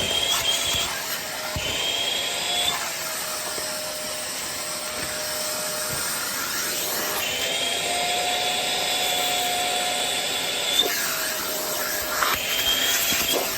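Vacuum cleaner running steadily with a hose attachment, its motor pitch wavering slightly a few times over a constant rushing of air.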